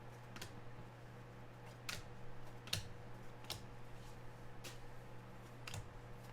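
About six soft, separate clicks and taps at uneven intervals, over a faint steady electrical hum.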